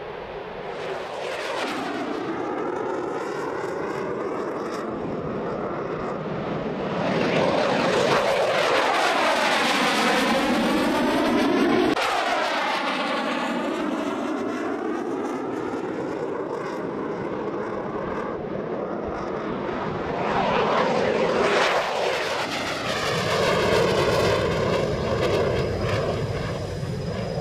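F/A-18 fighter jets flying past, their jet engine noise swelling as each one passes with a sweeping, phasing whoosh. The sound is loudest in two passes, one in the middle and one near the end, and cuts abruptly to another pass about twelve seconds in.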